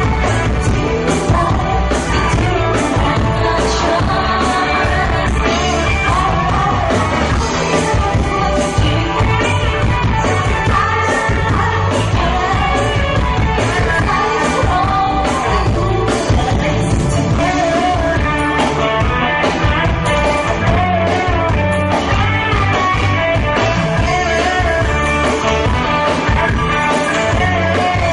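Music: a song with a singing voice over a band with a steady beat.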